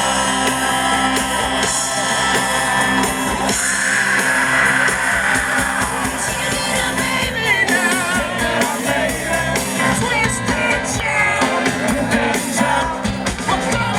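A live soul and rock-and-roll band playing, with a lead singer shouting and singing over guitar, bass and drums.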